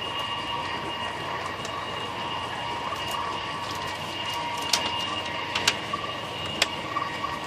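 Steady running noise of a vehicle, with a steady whine and a few sharp clicks in the second half.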